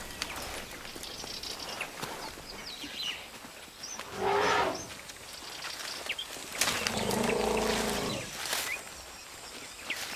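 An elephant calf calling twice: a short call that falls in pitch about four seconds in, then a longer call from about six and a half to eight and a half seconds.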